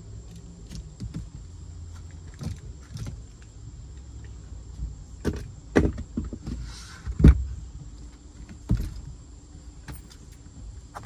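Wooden knocks and thumps as a plywood floor panel is handled and set in place in a boat under repair, several strikes with the loudest about seven seconds in, over a steady low rumble.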